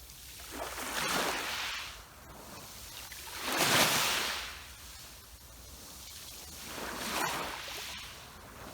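Sea waves washing onto the shore in three surges of surf, each rising and falling away over a second or two; the middle one is the loudest.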